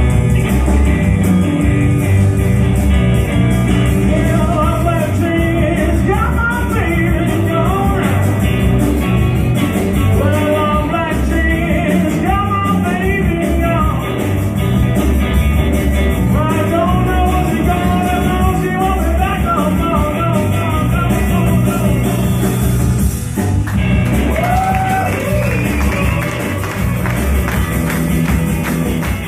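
A blues-rock band playing live, with electric guitar, bass guitar and drums under a lead line of notes that bend up and down.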